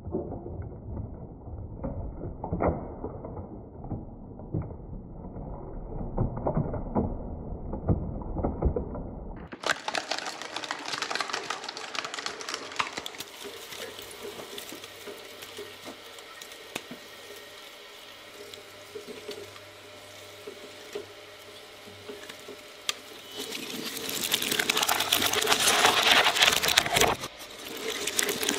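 Twin-shaft shredder's steel blades turning and crunching through a giant glitter-filled antistress ball, with dense crackling as the ball and its glitter are torn apart. Muffled for the first several seconds, then suddenly clear and crisp, and loudest near the end.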